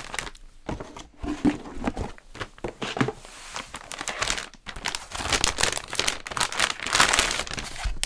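Plastic motherboard packaging crinkling and rustling as it is handled, with irregular clicks and scrapes that grow denser and louder in the second half.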